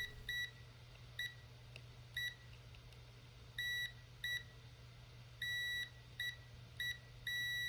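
Multimeter continuity tester beeping: about nine beeps at one high pitch, irregularly spaced, some short blips and some held for half a second or more, as the probes make and break contact. A faint steady low hum runs underneath.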